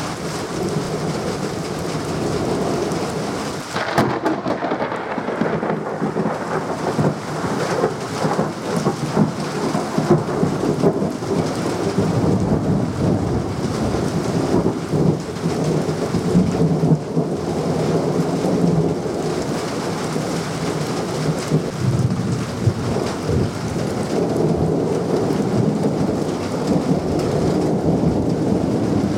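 Thunderstorm: heavy rain falling steadily under long rolling thunder that swells and fades, with a sharper thunderclap about four seconds in.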